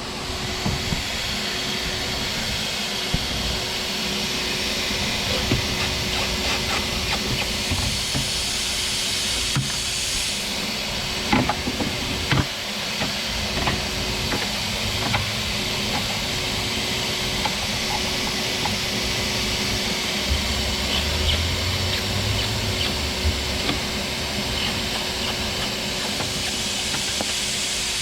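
Shop vac run as a blower, pushing air into the exhaust system: a steady rushing hiss with a constant hum, and scattered light clicks and knocks.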